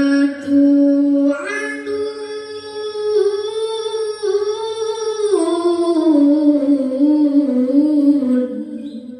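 A boy's voice reciting the Qur'an in melodic tilawah style, holding long ornamented notes that slide up and down in pitch; the phrase fades out near the end.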